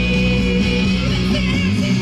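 A song with guitar plays loudly through the stage loudspeakers, with held notes and chords and no words.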